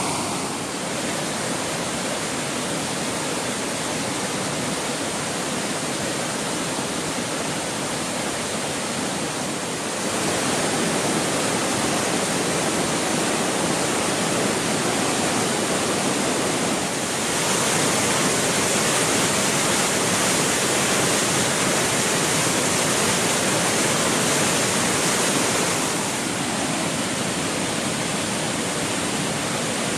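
Steady rush of a waterfall, a dense even noise of falling water. It steps louder about ten seconds in and again near seventeen seconds, then eases back near twenty-six seconds.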